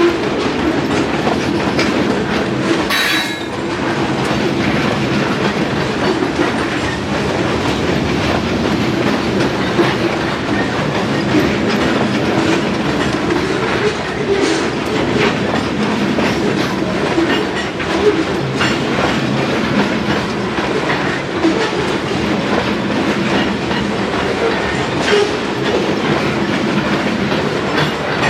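Freight train cars rolling past, their wheels clicking and clattering over the rail joints in an uneven rhythm, with a brief high-pitched squeal about three seconds in.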